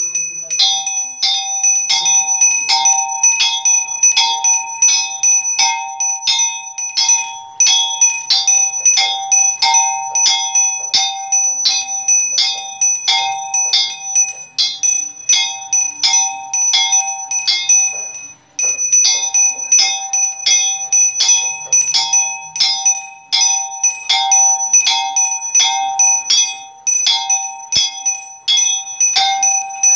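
Small brass bell rung by hand in rapid, steady strokes, the ringing of one stroke running into the next, with one short break about two-thirds of the way through. It is rung manually because a power cut has stopped the automatic bell ringer.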